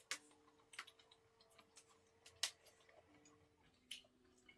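Quiet eating at a table: a few sharp, light clicks and taps at irregular intervals, from utensils against dishes, over a faint steady hum.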